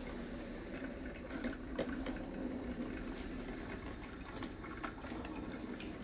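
Tefal Perfecta CM4428 drip coffee maker brewing: a steady bubbling and gurgling of heated water, with scattered small pops and ticks.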